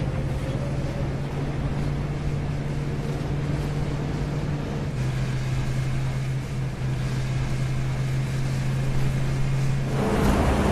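A steady low engine-like drone with a hiss of noise over it; the drone's pitch drops slightly about five seconds in.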